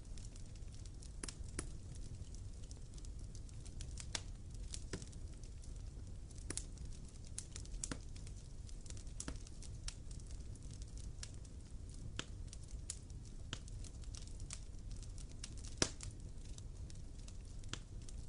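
Wood fire burning, crackling with irregular sharp pops over a low steady rumble of the flames, one pop louder than the rest near the end.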